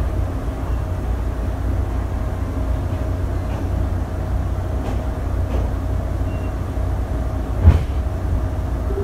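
Interior ride noise of a moving train coach hauled by a PNR INKA CC300 diesel-hydraulic locomotive: a steady low rumble with a faint steady hum, broken near the end by a single sharp knock.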